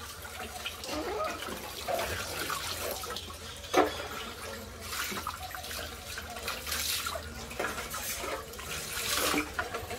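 Water splashing and pouring as a plucked turkey is washed by hand in a concrete washing basin, scooped and poured over the bird and rubbed in. A single sharp knock is heard a little under four seconds in.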